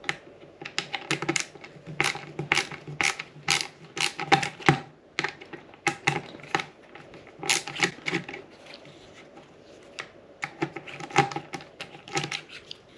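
Small screws being undone from a motorcycle instrument clock case with a screwdriver: a run of irregular sharp clicks and taps in quick clusters, with short pauses between screws.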